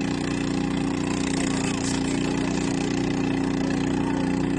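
Small motor boat's engine running steadily at a constant speed, holding one unchanging pitch.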